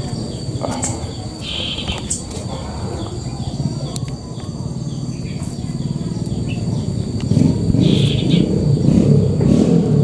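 Outdoor background of birds chirping in short calls, over a low rumble that grows louder in the last few seconds.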